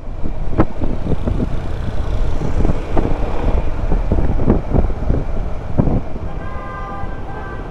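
Riding noise on a Yamaha X-Max 300 scooter: a steady low rumble of engine and road, with wind buffeting the microphone in irregular gusts.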